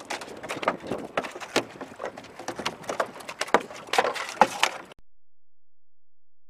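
A freshly landed sheepshead flopping on a boat deck: a rapid, irregular run of slaps and knocks that cuts off suddenly about five seconds in.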